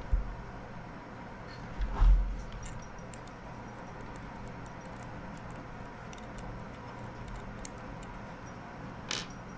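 Small handling noises at a model engine's brass fuel tank: scattered light clicks and taps, two dull thumps (the louder about two seconds in) and a short rustle near the end, over a steady low hum.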